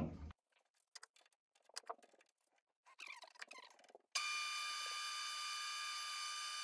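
A hand file scraping in short, irregular strokes against a steel pulley spinning in a metal lathe, breaking the sharp overhanging edge. From about four seconds in, a steady whine of the lathe running.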